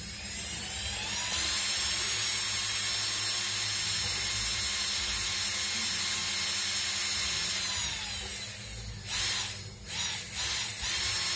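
Traxxas Titan 550 21-turn brushed electric motor running free in the hand: it spins up to a steady high whine, holds for about six seconds, winds down, then gives several short bursts near the end. It is being run to spin it dry after washing in water.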